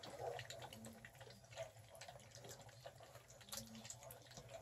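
Five-week-old Catahoula Bulldog puppies eating a milky mash of hamburger and dry food from a pan: faint, irregular wet lapping and smacking.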